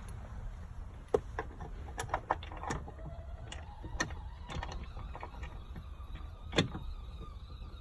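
Scattered small clicks and taps of a bolt, spacer and grab handle being handled and fitted together by hand, the loudest about a second in and near 6.6 s, over a low steady rumble.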